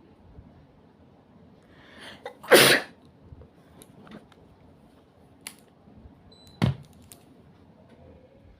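A person sneezing: a breathy in-breath builds up about two seconds in and breaks into one loud sneeze, followed later by a second, shorter and sharper burst. The sneezing is provoked by tickling the inside of the nose with a matchstick.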